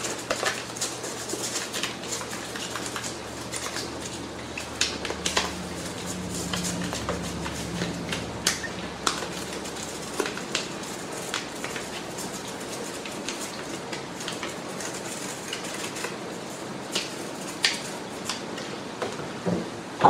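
Toothbrush scrubbing a wet plastic vacuum floor-nozzle housing in a soapy stainless-steel sink: a steady scrubbing with scattered clicks and knocks.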